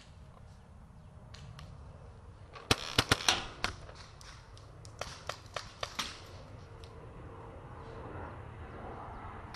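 Paintball markers firing in quick strings of pops: about five shots around three seconds in, then about five more a couple of seconds later.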